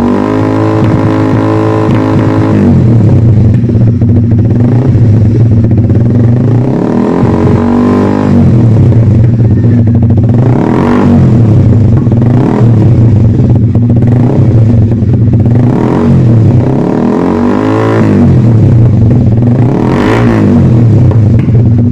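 Motorcycle engine through an aftermarket exhaust, dropping from a raised speed to idle, then blipped on the throttle several times. Each rev rises and falls straight back to idle, and the last rev near the end is longer and higher.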